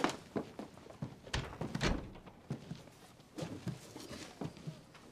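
A string of wooden knocks and thumps from someone moving about a small room and handling wooden furniture, with two heavier thumps about a second and a half and two seconds in.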